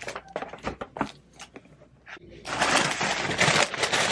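Paper being handled: a few light rustles and taps of paper sheets, then from about two and a half seconds in, loud continuous crinkling and rustling of a paper bag being opened and rummaged.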